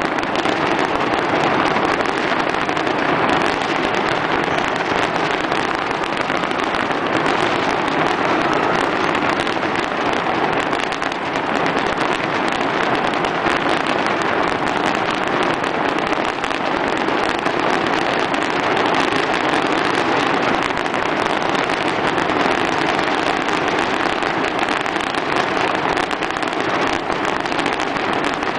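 Fireworks going off without a break: a dense, steady crackle of many small bursts.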